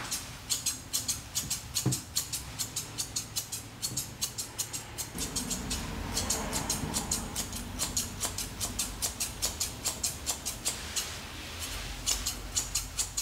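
Grooming shears snipping rapidly through a dog's leg fur, about four quick cuts a second, with a couple of brief pauses.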